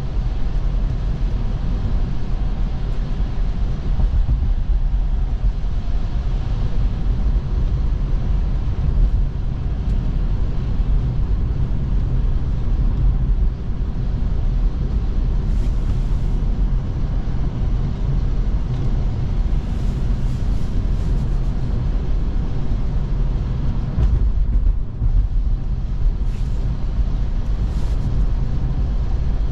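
Steady low rumble of tyre and road noise from an electric Tesla driving on snowy roads, with a few faint brief hisses in the second half.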